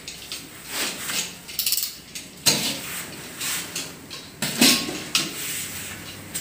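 Porcelain toilet cistern lid being worked loose and lifted off its tank: a string of scrapes, knocks and hard clinks of ceramic, with rustling of cardboard packing. The sharpest knocks come about two and a half and four and a half seconds in.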